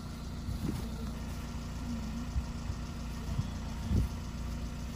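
Car engine idling steadily with a low hum, with a few soft thumps as ears of sweet corn are handled into a bag, the loudest about four seconds in.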